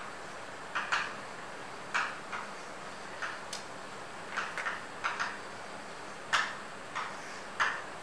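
Chalk writing on a blackboard: about a dozen short, sharp chalk strokes and taps at an uneven pace, over a steady faint hiss.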